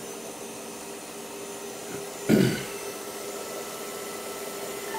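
Studer A80/R reel-to-reel tape recorder winding tape, its reels spinning with a steady motor whirr and hum. About two seconds in comes one brief, louder sound.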